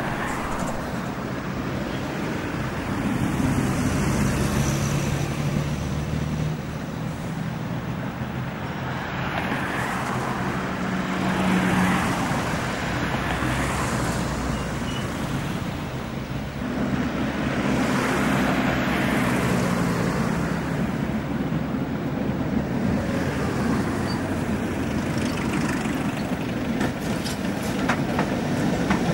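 Street traffic at a tram junction: road vehicles and Tatra trams running past, the sound swelling and fading several times as each goes by.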